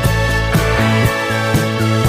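Background music with a steady beat and a pitched melody line.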